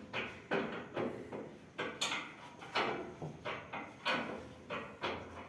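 Metal parts of a combine harvester being worked on: a dozen or so uneven clanks and knocks, about two a second, each ringing briefly.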